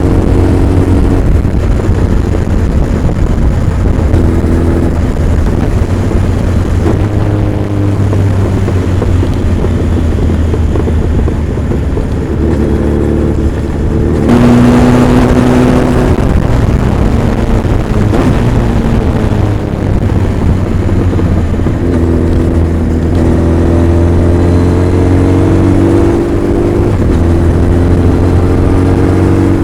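Honda CB1300 Super Bol d'Or's inline-four engine and exhaust on the move, running at changing revs with pitch rising under throttle several times, most clearly in the last third. About halfway through there is a louder rush of noise across the whole range.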